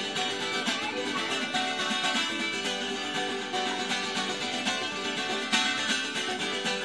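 Chitarra battente, the Calabrian steel-strung guitar, played solo in a continuous stream of quick picked notes and chords.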